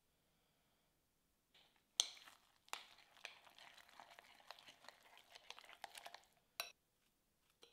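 A metal spoon stirring a thick mix of rolled oats, Greek yogurt and protein powder in a glass bowl: a few seconds of scraping with repeated clicks of the spoon against the glass, starting about two seconds in, then one more sharp clink near the end.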